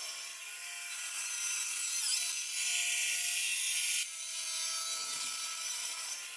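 Sawmill blade cutting through a log: a steady, high, hissing cut. It gets louder for about a second and a half from roughly two and a half seconds in, then drops back.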